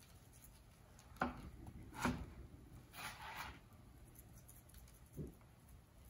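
Coarse steak rub shaken from a plastic shaker jar onto a raw beef roast: faint taps about one and two seconds in, a short rustle of falling granules about three seconds in, and a soft thud near the end.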